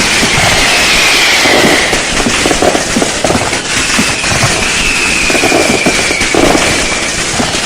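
Firecrackers going off in dense, rapid, continuous crackling. Twice, a faint whistle rides over it and slowly falls in pitch.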